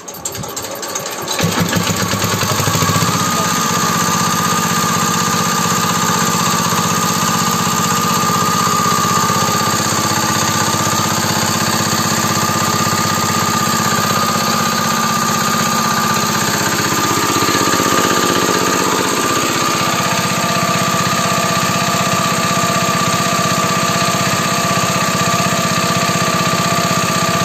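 Small 4 hp single-cylinder diesel engine catching and speeding up over the first couple of seconds, then running steadily with its freshly repaired fuel pump.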